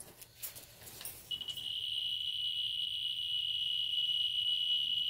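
Radiation survey meter's speaker giving a steady, continuous high-pitched tone, starting about a second in, as its probe is held on a hot spot of uranium ore: a count rate so high the clicks run together.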